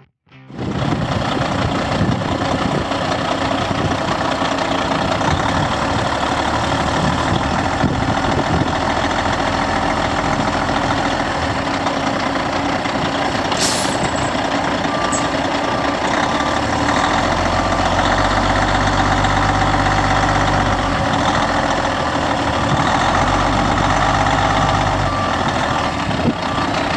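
Diesel engine of a 2001 Kenworth T800B truck tractor running steadily. A deeper low rumble comes in for several seconds past the middle, and a short run of beeps sounds near the middle.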